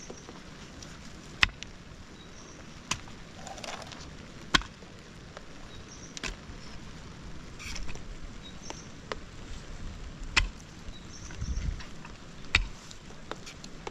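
A mattock striking and digging into wet soil, a sharp hit every one to two seconds.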